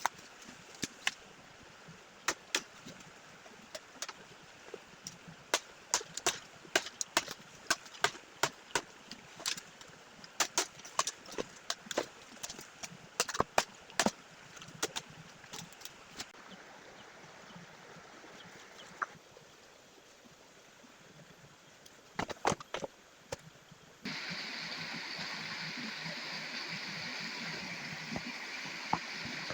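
Bamboo being chopped: many sharp, irregular knocks, often two or three a second, then a short cluster of strikes a little later. About three quarters of the way in the sound changes abruptly to the steady rushing of a stream.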